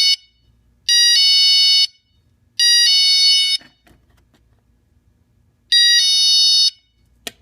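Battery-powered hang-on door motion alarm sounding, set off by movement: loud electronic beeps in bursts of about a second, each stepping from a higher tone to a lower one, three in quick succession and one more after a pause. A sharp click near the end.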